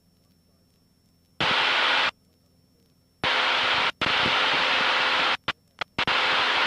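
Aircraft communication radio squelch breaking open with no voice: several bursts of steady static hiss that start and cut off abruptly, the first about a second and a half in, with a couple of short static clicks near the end.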